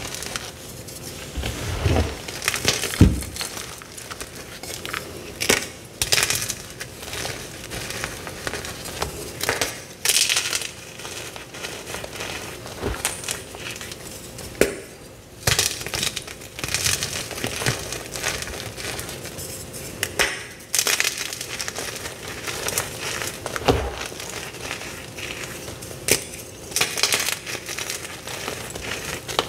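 Hands crushing and crumbling blocks of dyed gym chalk: continuous dry crunching and crackling, broken by irregular sharp snaps as pieces break off.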